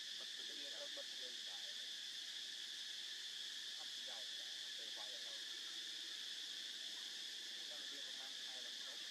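Steady, continuous high-pitched buzz of an insect chorus in the forest, with faint distant voices now and then.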